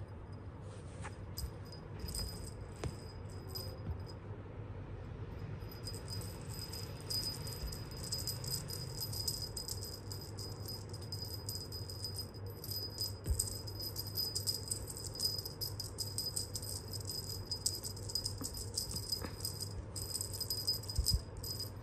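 Small jingle bell on a cat wand toy jingling in quick, irregular shakes as kittens bat at it, sparse at first and then almost continuous from a few seconds in.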